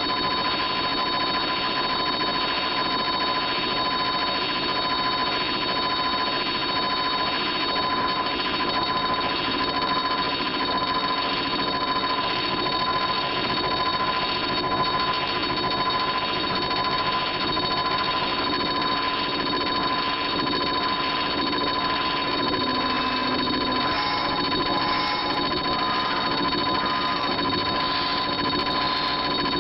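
Arduino-based noise synthesizer holding a sustained electronic drone: steady piercing tones over a dense buzzing, glitchy texture. The pitches shift slightly near the end.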